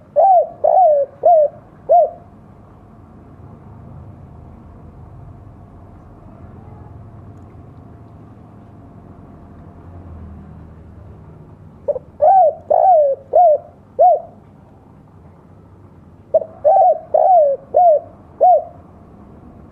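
Spotted dove (tekukur) singing its 'kuk dua' style coo: three phrases of about five coos each, each about two seconds long. The first starts right away, the next comes about twelve seconds in, and the last about sixteen seconds in.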